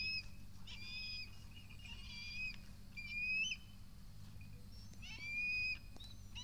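Harris's hawk calling repeatedly, a high, thin, whistle-like scream roughly once a second, each call sweeping up and then held, with a pause near the middle.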